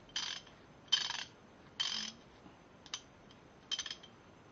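Socket ratchet wrench being worked back and forth, its pawl clicking in short runs about once a second.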